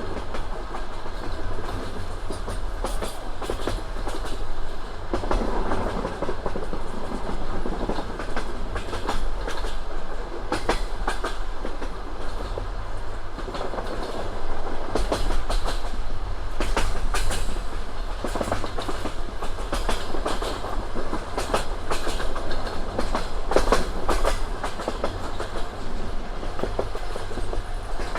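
Passenger train running at speed: a steady rumble of the carriage with the wheels clattering over rail joints in repeated clusters of knocks every few seconds.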